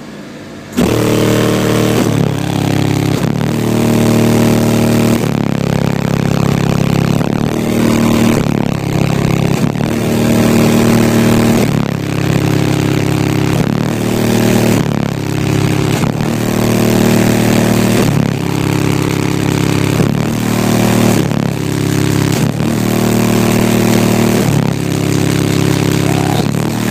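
Competition car audio system blasting bass-heavy music at full volume for an SPL (sound pressure level) run. It starts abruptly under a second in and pounds on with a repeating beat of low, shifting bass notes.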